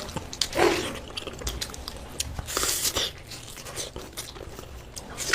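Close-up chewing and crunching of food in the mouth, with many small clicks throughout and two louder bursts, about half a second in and near the middle.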